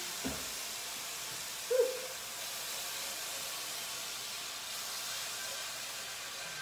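Bone broth sizzling and hissing steadily in a hot skillet as it deglazes the pan, while being stirred with a whisk. A short, louder sound cuts in about two seconds in.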